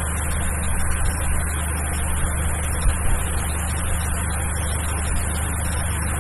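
Steady low background hum with hiss, unchanging throughout, and one faint click about three seconds in.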